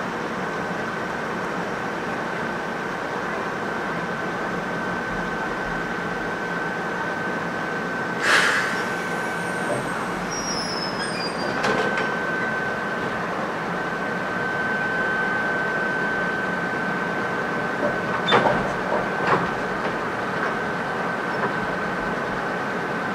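Ichibata 5000-series electric railcar creeping slowly up to a coupled train, with a steady high whine from the standing trains' equipment. A brief hiss comes about a third of the way in and two sharp clicks near the end as the cars close in for coupling.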